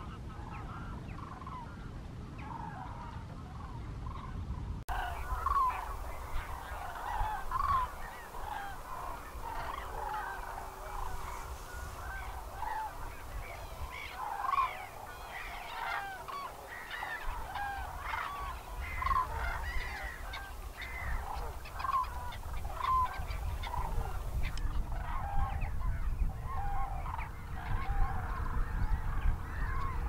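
A large flock of common cranes and geese calling over one another: many short, overlapping trumpeting and honking calls. The calls start suddenly about five seconds in, after a quieter stretch.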